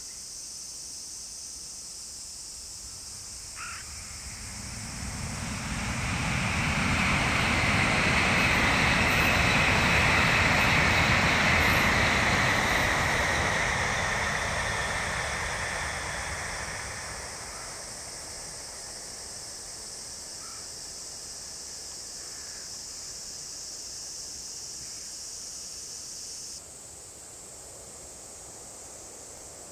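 Tokaido Shinkansen high-speed train passing on a viaduct at speed. Its rushing noise builds from about four seconds in, is loudest for several seconds, then fades away over about five seconds.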